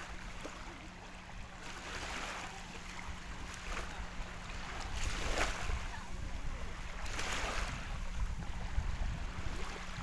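Wind buffeting the microphone over small waves lapping on a sandy shore, the wash swelling a few times. A faint steady hum runs underneath.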